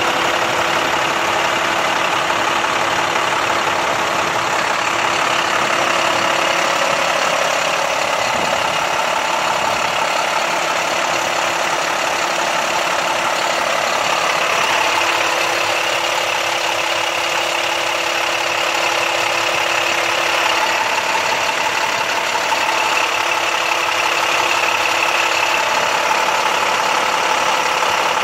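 International WorkStar truck's diesel engine idling steadily.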